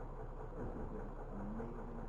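Steady low rumble of a fishing boat's engine, with faint voices in the background.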